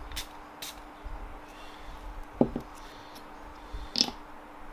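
A glass perfume bottle knocks twice on a table about two and a half seconds in, then its atomizer pump gives one short spray about four seconds in, the loudest sound here.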